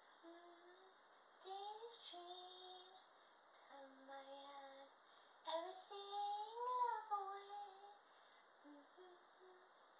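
A woman singing faintly without accompaniment, in a few drawn-out phrases with short pauses between them; the longest and loudest phrase comes in the second half.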